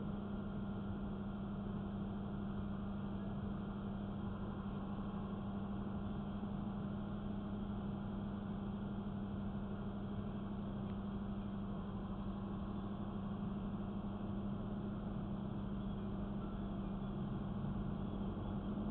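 Steady low drone of a stopped vehicle's engine idling, heard from inside the cab, with a constant low hum throughout.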